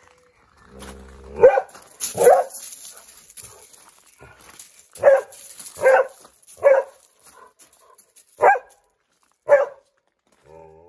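Border collie barking, about seven sharp single barks at uneven intervals, with a short low growl just before the first. It is alert-barking at squirrels it cannot find.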